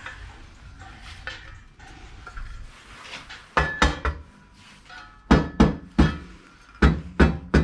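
Steel blade of a folding camping shovel swung on its freshly re-tightened hinge, clanking sharply against its stop about nine times in quick groups of two or three over the second half, after a few seconds of soft handling rustle.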